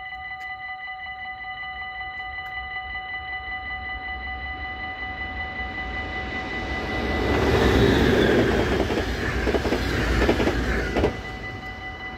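An NS passenger train approaching and passing at speed, its rushing wheel-on-rail noise swelling to its loudest about eight seconds in and cutting off sharply about eleven seconds in as the last car goes by. Throughout, a level-crossing warning bell rings with a steady pulsing beat.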